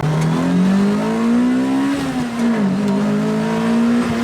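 2006 Lotus Exige's naturally aspirated Toyota 2ZZ four-cylinder engine accelerating, its note rising steadily. About two and a half seconds in the pitch dips briefly, then it holds a steady drone.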